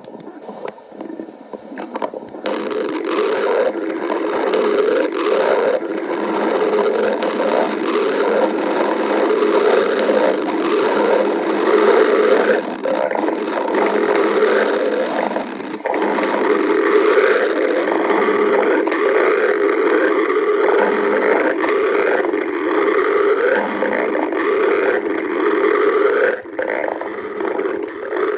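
Loud stomach growling that runs on almost without a break, with a few short dips.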